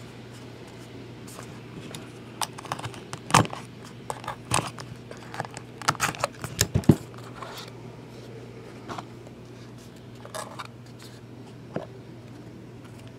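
Trading cards being handled as a pack is opened and the cards are slid out: scattered clicks, scrapes and light crinkling, busiest in the first half, over a steady low hum.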